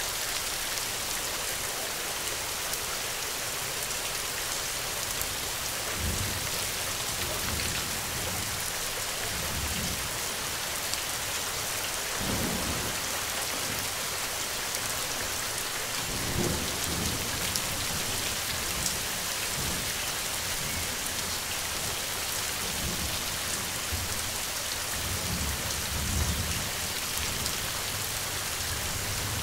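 Steady rain falling as an even hiss, with low rolls of thunder rising and fading several times.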